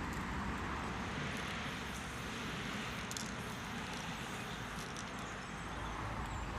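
Steady road traffic noise, an even rushing hum without breaks.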